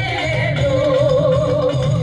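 Kerala adivasi folk song: a voice holds a long, wavering note over steady drumming.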